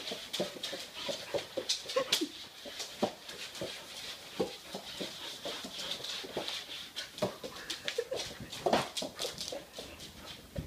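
A dog whining in short whimpers and yips, with many quick clicks of its claws on a hardwood floor as it moves about.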